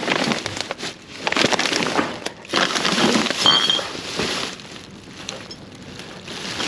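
Trash in a dumpster being shifted and pulled at: irregular crunching, crackling and rattling in several bursts, with quieter gaps between.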